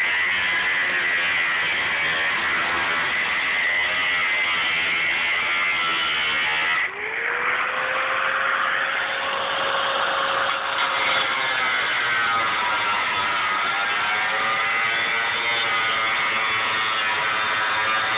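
Angle grinder with a thin cutoff wheel cutting the steel shell of a hot-water-heater tank: a loud, steady grinding whine. About seven seconds in the sound dips briefly and the motor's whine rises and holds higher as the wheel runs free off the metal, then wavers as it goes back to cutting.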